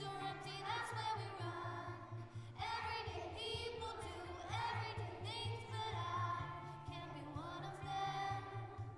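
Primary-school children's choir singing a song, phrases rising and falling in pitch.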